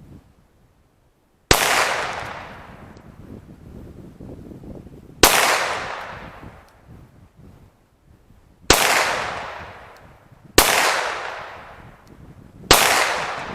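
Five shots from a Glock 19 9mm pistol firing 115-grain full metal jacket rounds, fired at uneven intervals a few seconds apart. Each sharp crack trails off in an echo over a second or two.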